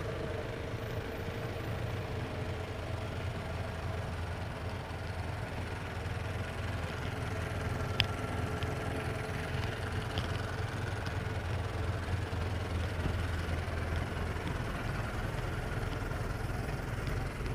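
A bus engine idling steadily, low-pitched, with one sharp click about eight seconds in.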